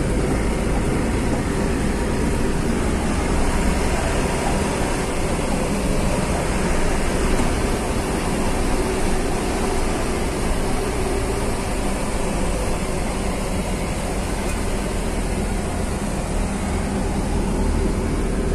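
Steady engine and driving noise of a heavy vehicle heard from inside its cab, with a deep low rumble.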